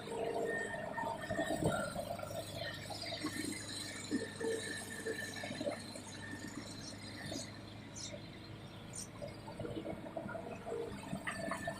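Excavator digging a waterlogged ditch: water and mud pouring and splashing over the machine's steady low engine hum, with scattered small knocks.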